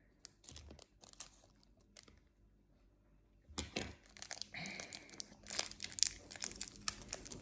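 Small plastic wrapper of a blind-bag toy crinkling and tearing as it is worked open by hand. Only a few faint ticks at first, then busy crinkling from about halfway through.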